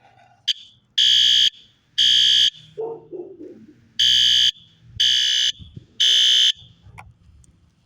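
System Sensor SpectrAlert Advance fire alarm horn sounding at its default high-volume, code-3 temporal setting: loud half-second blasts, two, then after a pause of about a second and a half, three more.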